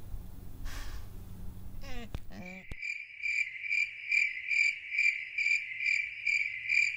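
Cricket chirping in an even rhythm, about two chirps a second, heard clean from about three seconds in. Before it there is low outdoor background noise and a brief run of quick rising squeaks.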